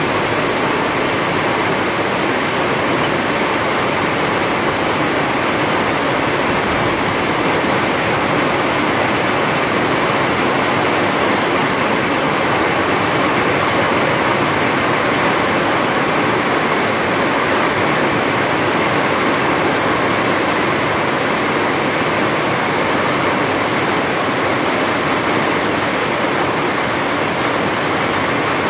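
Steady heavy rain falling, a constant even hiss with no letup.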